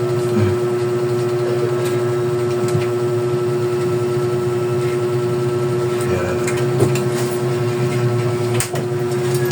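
Steady machine hum holding one pitch throughout, with a few light clicks about seven and eight and a half seconds in.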